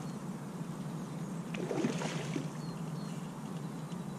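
Water splashing as a hooked chub thrashes at the surface close to the bank, loudest about one and a half to two and a half seconds in.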